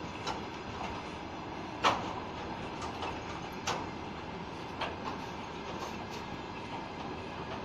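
Freight train of hopper wagons rolling past: a steady rolling rumble broken by irregular sharp clanks of wheels over rail joints, the loudest about two seconds in.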